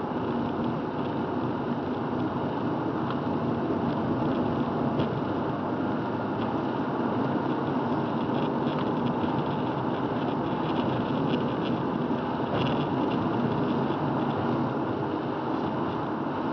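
Steady tyre and engine noise of a car driving on a wet highway, heard from inside the cabin, with faint scattered ticks on top.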